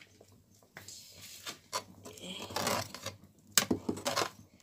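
Metal ladle stirring soup in a metal pot, scraping and knocking against the pot several times, with the sharpest knocks in the last second or so.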